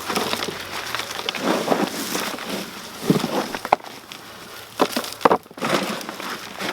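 Hands digging through dry soil in a potato container, an irregular crunching and scraping, with a few sharp knocks near the middle.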